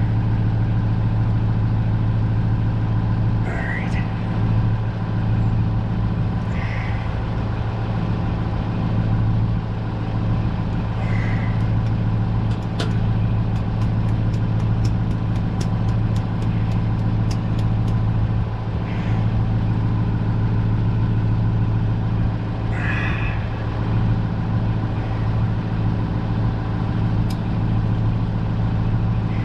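An engine running steadily with a low, even hum. Scattered light clicks and taps sound over it, bunched together in the middle.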